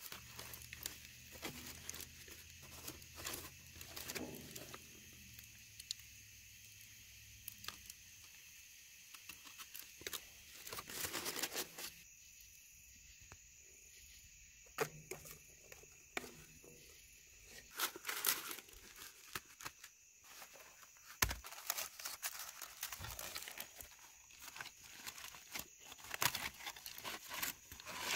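Aluminium foil crinkling and rustling in irregular bursts as a foil-wrapped fish is handled and opened, with scattered metal clinks from utensils on the pans. Insects trill steadily behind.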